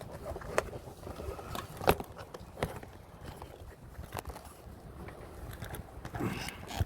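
Footsteps and light knocks on hard ground, a few irregular sharp clicks roughly a second apart.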